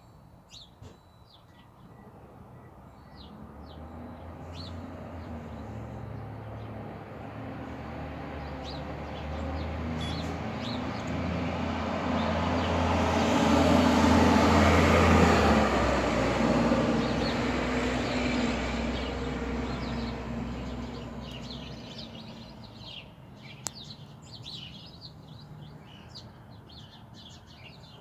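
A motor vehicle drives past on the road: engine and tyre noise swell to a peak about halfway through, the engine's tone drops as it passes, then it fades away. Small birds chirp faintly before it comes and after it has gone.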